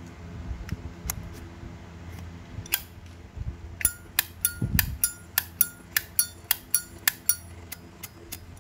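A 1994 Zippo lighter's hinged lid being flicked open and snapped shut again and again: sharp metallic clinks, a few at first, then a steady run of about two to three a second from about four seconds in, each with a short ringing tone. The sound is quite resonant.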